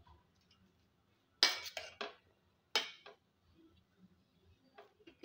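A metal spoon stirring a stiff, dry fritter mixture of mashed chicken, potato, onion and flour in a bowl, clinking and scraping against the bowl. Two sharp clinks with a few quieter scrapes after each come about one and a half and three seconds in, then lighter taps near the end.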